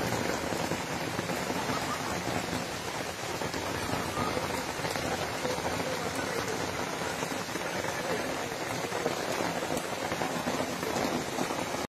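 Heavy rain pouring down over a fast, flooded river: a steady, dense hiss of rain and rushing water.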